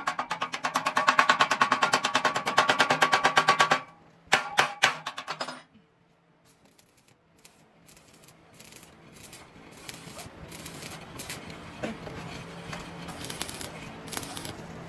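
Rapid metallic tapping, more than ten ringing blows a second, for about four seconds, then a few more strikes and a fainter, irregular clatter of metal work.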